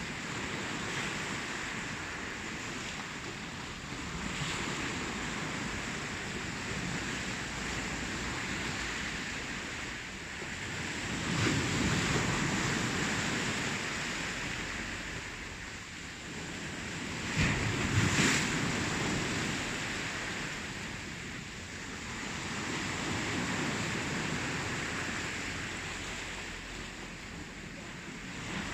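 Ocean waves breaking and washing up the shore in slow swells, one surge every several seconds. The two loudest breakers come about 11 and 18 seconds in. Some wind rumble is on the microphone.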